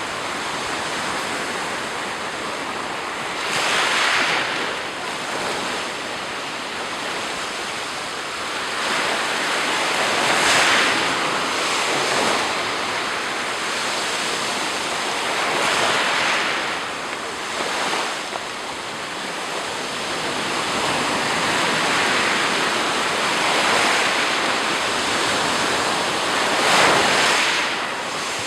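Sea surf breaking on the shore: a continuous wash of water with a louder wave swelling in and hissing about every five to six seconds. Light wind noise on the microphone.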